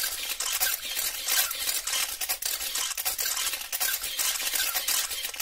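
Continuous dense crackling, fizzing noise, mostly high-pitched and full of fine clicks.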